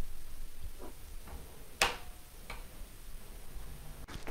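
A few faint, scattered clicks over a low background hiss, the sharpest about two seconds in and another near the end.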